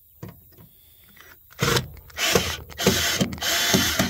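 Cordless power drill driving a mounting screw into the coop wall, run in four or five short loud spurts starting about a second and a half in.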